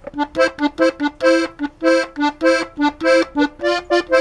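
Diatonic button accordion tuned in G playing a melody phrase in short, detached notes, about four a second, each sounding two notes together in harmony.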